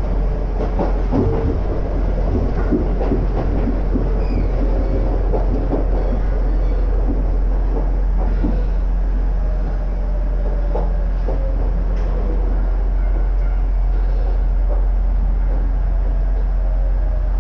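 Ex-Tokyu electric train car running, heard from inside the cabin: a steady rumble of the wheels on the rails, with a run of clattering knocks from the track in the first few seconds and a few more later.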